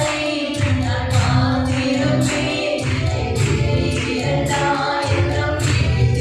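Christian worship song: a group of voices singing together over instrumental backing with a steady beat.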